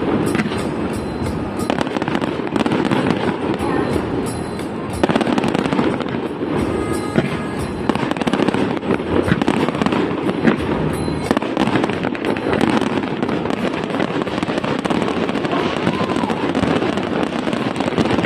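Aerial fireworks display going off continuously: a dense, unbroken run of bangs and crackling.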